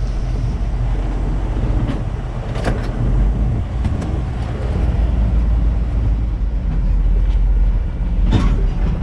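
A vehicle engine running steadily with a low rumble, with a couple of sharp knocks about a third of the way in and near the end.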